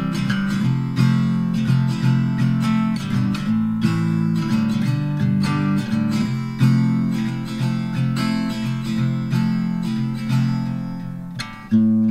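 Background music: acoustic guitar plucked and strummed in a steady rhythm, with a brief dip and a louder phrase starting near the end.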